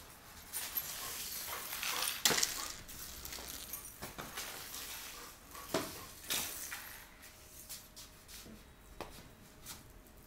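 Shoes and a dog's paws scuffling, tapping and scraping on a tiled floor during rough play, with a few sharp knocks.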